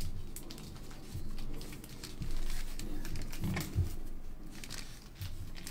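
Handling noise: foil trading-card pack wrappers rustling and packs and card stands knocking lightly on a table, with a couple of soft thumps about three and a half seconds in.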